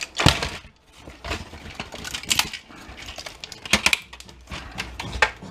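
Plastic and metal parts of an inkjet all-in-one printer clicking and clattering as they are pried and pulled apart by hand, with several sharp clicks at irregular intervals.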